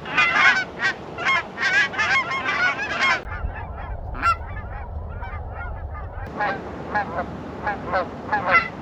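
Canada geese honking, many short overlapping calls from a flock. The calls thin out for a few seconds in the middle under a low rumble, then pick up again.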